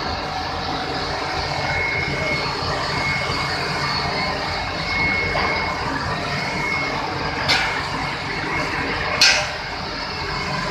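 Steady din of sugar-mill process machinery running, with a thin high tone coming and going. Near the end come two sharp knocks about a second and a half apart, the second louder.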